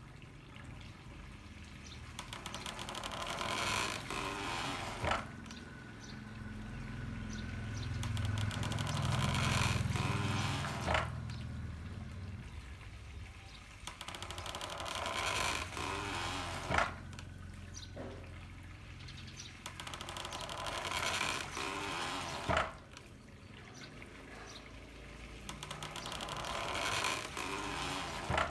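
Water pouring and splashing from bamboo pipes into a handmade water-powered corn mill. The mill gives a sharp knock about every six seconds, and the flow swells between knocks.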